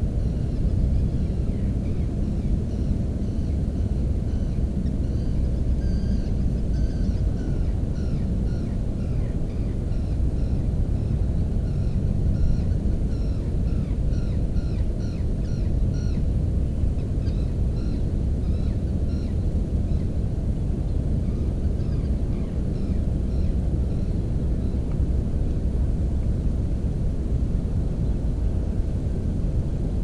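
A steady low rumble runs throughout. Over it, from a few seconds in until about two-thirds of the way through, a songbird in the reeds gives faint, rapid short high notes.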